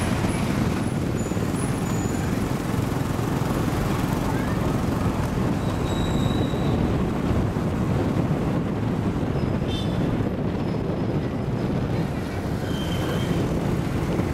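Steady engine, tyre and wind noise of a motorbike ride on an unpaved town road, with other motor scooters and cars passing in traffic.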